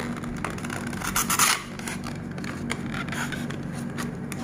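Cardboard packaging being opened and a clear plastic model case sliding out of the small box: paper and plastic scraping against each other, loudest in one slide about a second in and again briefly near three seconds, with a few small clicks.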